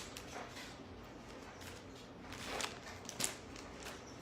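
A few faint, brief rustles and a soft tap from handling material, against a quiet room.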